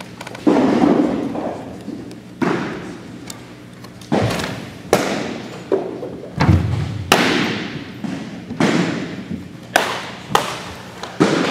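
Baseballs smacking into catchers' mitts: about a dozen sharp thuds at irregular intervals, each echoing in a large gymnasium.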